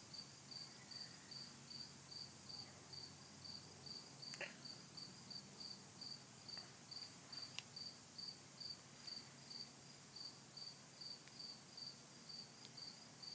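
A cricket chirping faintly and steadily, about two short high chirps a second, with a couple of soft ticks in between.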